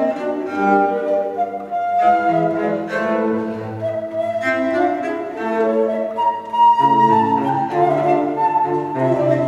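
Baroque transverse flute (traverso) playing a melody over baroque cello and organ continuo, a Baroque sonata for flute and basso continuo, the notes moving steadily from one to the next.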